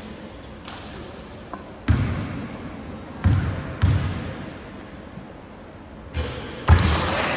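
A basketball bounced on a hardwood sports-hall floor, three echoing thuds about two to four seconds in as a free throw is lined up. Near the end come two louder thuds as the shot is taken, followed by spectators cheering and clapping.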